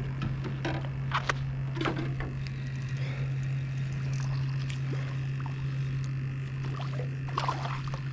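A steady low hum with scattered light clicks and knocks.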